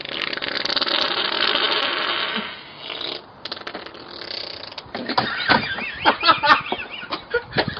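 A long, loud fart lasting about three seconds, followed a couple of seconds later by a run of short, irregular sputtering sounds.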